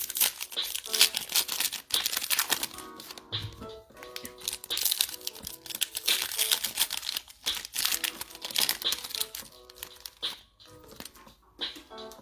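Foil trading card pack wrappers crinkling and tearing as packs are opened by hand, in irregular bursts that thin out near the end. Quiet background music plays underneath.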